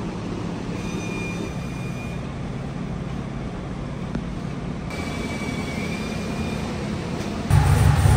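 A vehicle engine running with a steady low drone, a faint high whine coming and going twice, then a sudden much louder burst of engine sound near the end.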